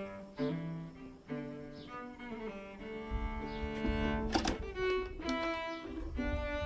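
Background music: a bowed-string melody in a low, cello-like register, moving through held notes. A short noisy burst cuts across it about four seconds in.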